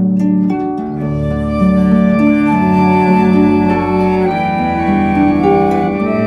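Chamber ensemble of harp, keyboard on an organ-like sound, cello and flute playing an instrumental passage of a Christmas carol arrangement. It has plucked harp notes near the start over sustained chords that change every second or so.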